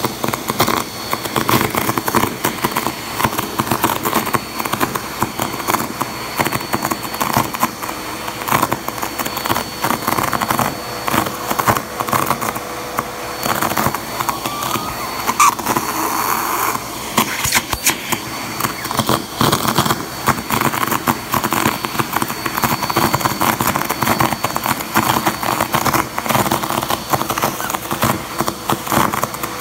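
Vacuum cleaner running steadily through its hose, with a steady hum and a high whine. Squares of tissue paper rustle and crackle as the hose sucks them up off the carpet.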